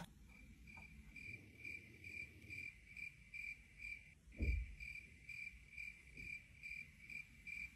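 A cricket chirping faintly and evenly, about two and a half chirps a second, with a soft low thump about four and a half seconds in.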